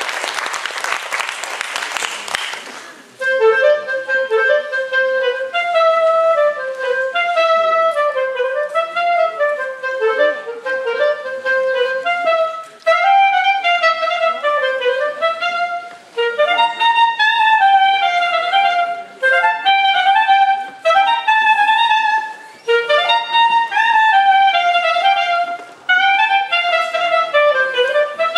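Solo unaccompanied clarinet playing a folk melody in phrases of a few seconds each, with short breaks between them. The melody starts about three seconds in, after a loud, even rush of noise.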